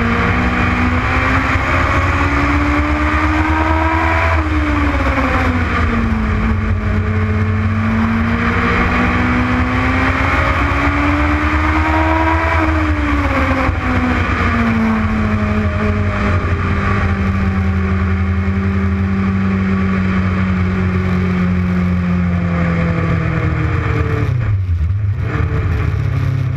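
Legends race car's engine running hard. It climbs in revs and eases off twice, holds a steadier, lower speed, then drops sharply toward idle near the end.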